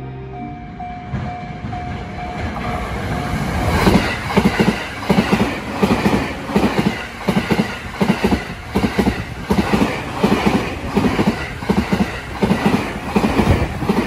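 A JR commuter train passing at speed close by a level crossing. Its rumble builds, then about four seconds in a regular clickety-clack begins as the wheels go over the rail joints, and it keeps on until the train has gone by.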